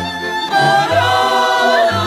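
Music: a song with long held, slightly wavering sung notes over a steady bass line, a new phrase starting louder about half a second in.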